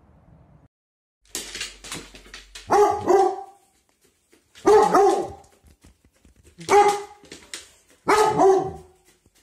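Husky-type dog barking: four loud, drawn-out barks with a bending pitch, about two seconds apart.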